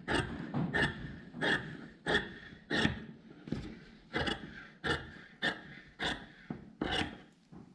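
Large fabric shears cutting through jacket canvas along the edge of a jacket front: a steady run of crisp snips, about three every two seconds, each one a blade closing through the canvas. The snips stop shortly before the end.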